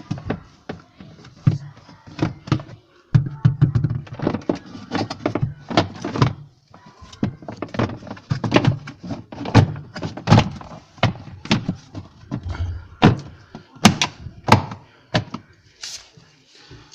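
A refrigerator's plastic protective cover being handled and pushed into place, with many irregular sharp clacks and knocks, some of them loud.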